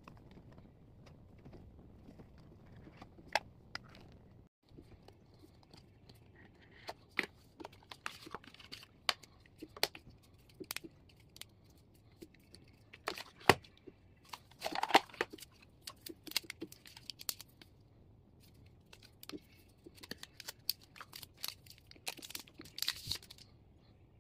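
Handling of a smartphone's cardboard box and its paper and plastic packaging: scattered taps and clicks, with crinkling and tearing, loudest in two clusters, one midway and one near the end.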